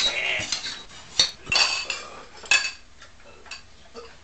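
Spoons clinking against bowls as several people eat at a table: a few sharp clinks, each ringing briefly, about a second apart.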